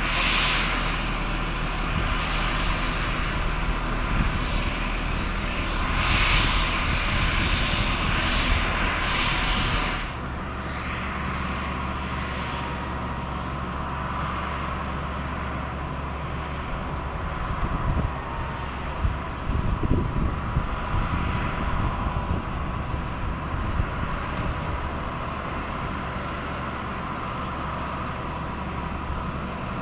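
Boeing 767-300ER jet turbines whining and rumbling steadily, a continuous high whistle over a broad rush, during pushback. About ten seconds in, the sound abruptly drops in level and loses its top end.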